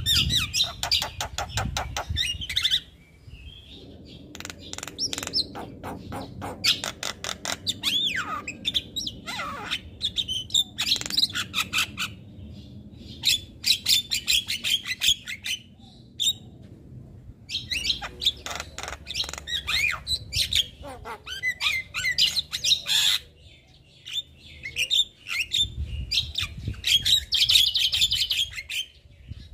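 Javan myna singing in bursts: rapid runs of clicking notes mixed with squawks and whistles, broken by short pauses.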